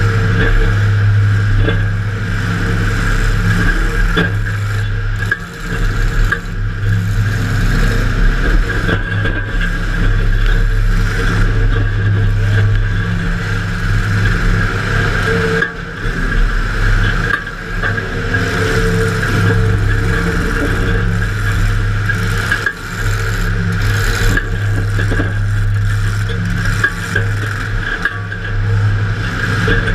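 Demolition derby car's engine running hard and revving, heard from inside the car, its level dipping and surging several times, with a few short knocks and rattles of metal.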